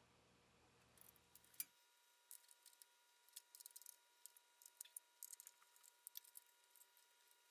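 Near silence with faint, scattered clicks and taps of plastic parts being handled as a brush dust shoe and its hose collar are fitted onto a CNC router spindle, with one sharper click about a second and a half in.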